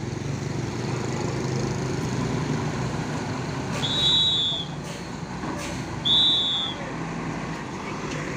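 Tour bus engine running as the bus goes past. Two short, high, whistle-like tones sound about two seconds apart, near the middle of the passing.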